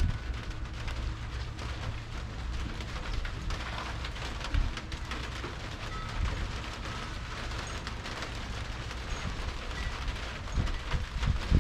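Rain falling and pattering on surfaces, with a low rumble underneath that fades out about two-thirds of the way through. A few low thumps come near the end.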